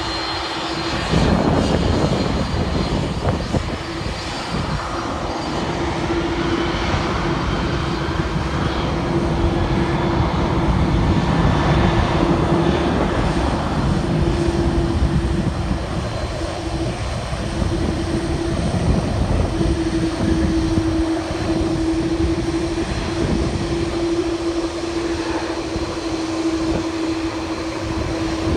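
Airbus A330 airliner's jet engines at taxi power as it rolls past: a steady droning hum over a rushing rumble that grows louder about a second in.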